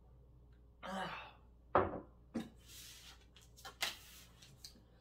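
A ceramic mug set down on a wooden table with a single thunk, after a short breathy vocal sound. Then tarot cards being handled and laid out on the table: a few sharp clicks and brief rustling slides.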